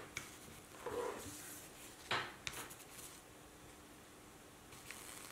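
A few faint clicks and light taps from a soldering iron touching up a solder seam on a copper-foiled stained glass piece, the sharpest about two seconds in. A faint steady hum runs underneath.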